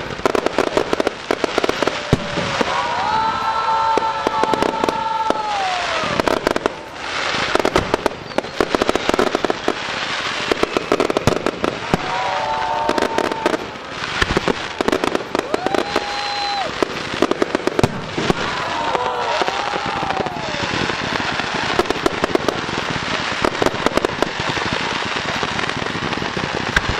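Fireworks display: aerial shells banging and crackling in a rapid, continuous barrage, with several long whistles that bend down in pitch at their ends.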